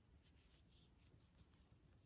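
Near silence with faint, soft rubbing of yarn drawn over a crochet hook as stitches are worked.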